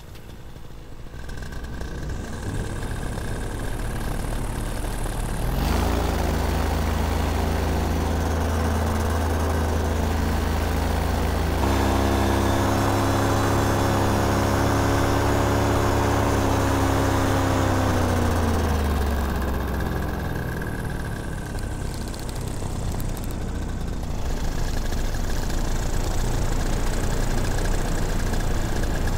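Paramotor engine and propeller running in flight, throttled up sharply about six seconds in and again near twelve seconds, then eased back with a falling pitch a few seconds later before settling to a steady lower run.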